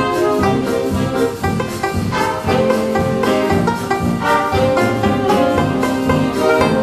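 1920s dance band playing hot jazz on vintage instruments, with saxophones, trumpets and trombone over a steady beat.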